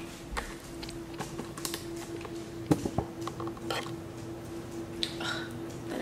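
Scattered light clicks and knocks of household items and packaging being handled, with two sharper knocks around the middle, over a faint steady hum.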